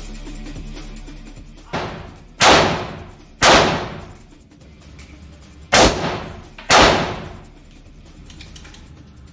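AK-47 rifle in 7.62 mm fired as single shots: five shots, the first quieter, then two about a second apart, a pause of two seconds, and two more a second apart. Each shot rings on briefly in the indoor range.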